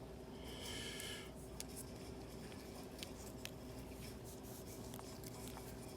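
Faint scratchy rustle of thin protective plastic film being peeled and handled, lasting about a second near the start, followed by a few light clicks of handling.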